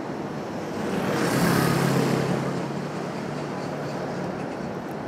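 Street traffic: a motor vehicle passes close by, loudest about a second and a half in, followed by a low steady engine hum.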